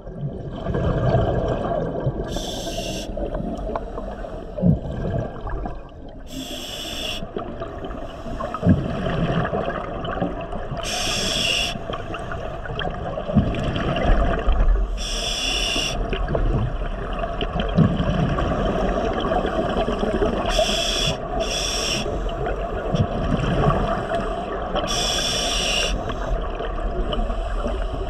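Scuba diver breathing through a regulator underwater: a short hiss of inhalation about every four seconds, seven in all, with bubbly rumbling exhalations between.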